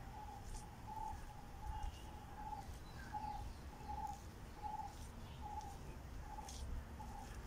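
Outdoor ambience with a bird repeating one short note evenly, about one and a half times a second, and fainter chirps from other birds.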